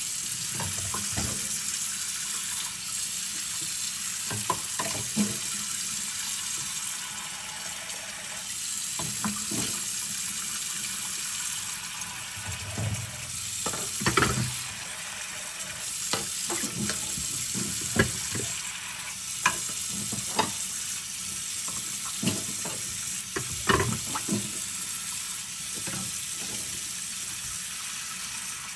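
Kitchen tap running steadily into a sink while a stack of plates is pre-rinsed, with plates clinking and knocking against each other a dozen or so times, loudest near the middle and toward the end.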